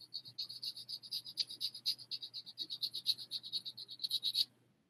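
Sandpaper wrapped around a fingertip rubbing a small dried papier-mâché figure: quick, light back-and-forth sanding strokes, about nine a second, that stop about four and a half seconds in.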